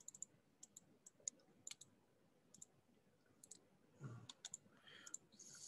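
Faint computer mouse clicks over near silence: a dozen or so sharp clicks at uneven intervals, some in quick pairs like double-clicks opening folders and files.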